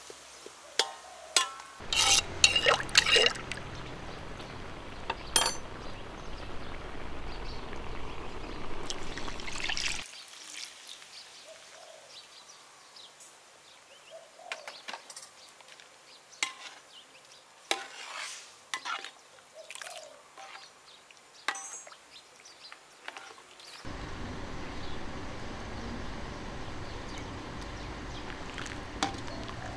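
Kitchen sounds of liquid being poured and stirred, with scattered sharp clinks and knocks of utensils against pots and dishes. A steady hiss of running liquid starts and stops abruptly, with a quieter stretch of clinks in the middle.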